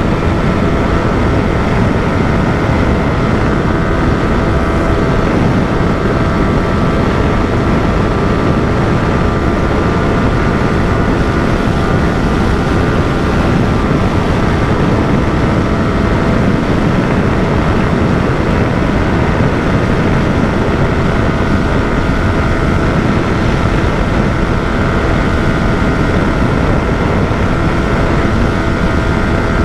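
Yamaha R15 motorcycle engine held steady at high revs near its top speed of about 145 km/h, under heavy wind rush on the rider's microphone.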